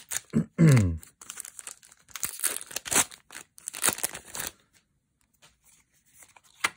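A foil Magic: The Gathering set booster wrapper crinkles and is torn open by hand, crackling from about a second in until about four and a half seconds. Before that comes a brief spoken word. After it things are nearly quiet, with one short snap near the end.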